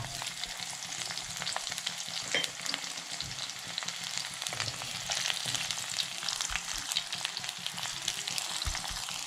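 Chopped garlic sizzling and crackling steadily in hot coconut oil in a clay pot, while a wooden spatula stirs and scrapes it around.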